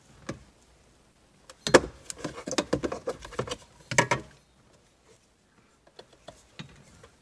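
Knocks and rattles of hands and a handheld flashlight moving against the steering column and under-dash trim. There are two sharper knocks, about two and four seconds in, and a few faint clicks after them.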